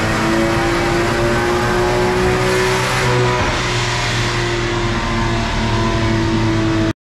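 Turbocharged Volvo four-cylinder engine idling steadily, heard close up from the open engine bay; the sound cuts off suddenly near the end.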